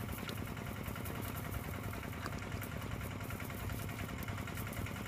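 An engine running steadily, a continuous low hum with no change in speed.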